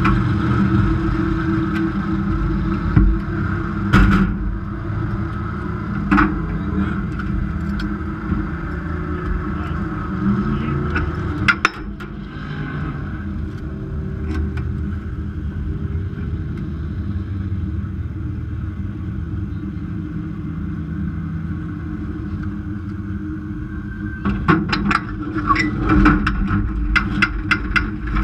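Dirt-track race car engine idling, heard from inside the cockpit, with a few sharp knocks; it cuts off suddenly about twelve seconds in, leaving a lower, steadier engine rumble. Near the end comes a quick run of sharp metallic clanks and knocks as a wrecker is hooked up to the car.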